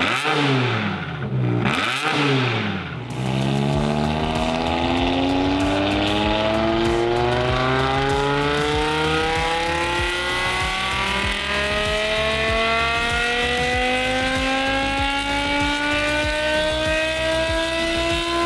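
BMW M5's 5.0-litre V10 on a chassis dyno: two quick revs up and down, then a full-throttle power run with the engine note climbing steadily for about fifteen seconds.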